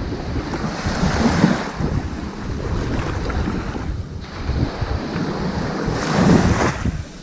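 Ocean waves washing up on a sandy beach: a wash of surf that swells about a second in, eases off, and swells again more strongly near the end.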